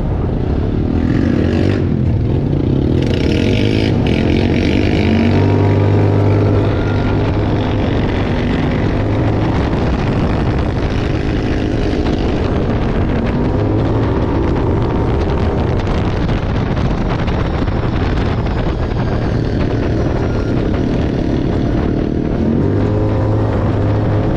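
A vehicle engine running and being revved, its pitch rising and falling repeatedly.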